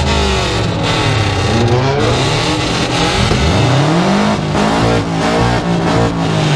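Car engine revved hard through a loud aftermarket exhaust, its pitch rising and falling several times with one long climb a little past halfway.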